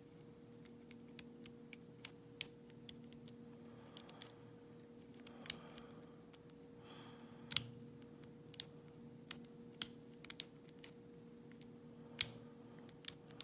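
Lock pick and tension tool working the pins of a Yale 417N padlock: irregular sharp metallic clicks and taps, a few much louder than the rest, over a faint steady hum.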